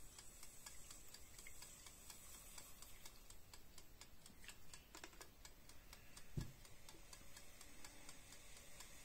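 Near silence with faint, rapid clicking and one soft low thump about six seconds in.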